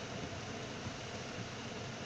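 Steady rushing noise inside a car's cabin in heavy rain, rain on the roof and windshield mixed with tyres on the wet road and the engine, with no distinct events standing out.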